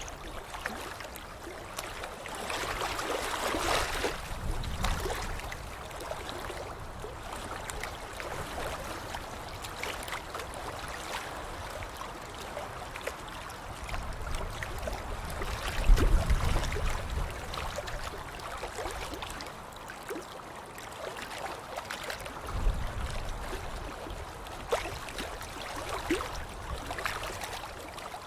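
Water splashing and sloshing without a break, with many small splashes. A heavier splash with a deep low surge comes about halfway through and is the loudest moment; another follows several seconds later.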